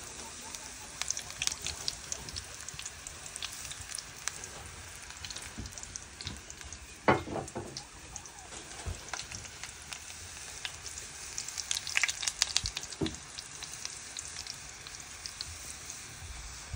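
Green-plantain baskets frying in very hot oil, close to burning: a steady sizzle with crackling spatters. A sharp knock comes about seven seconds in, and a denser run of crackles and knocks around twelve seconds.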